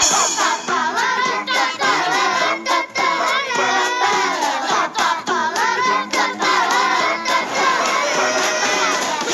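Music with children's voices singing.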